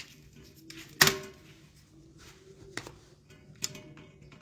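Handling clicks and knocks while a light is being fixed: one sharp knock about a second in and two fainter clicks later, over a faint steady hum.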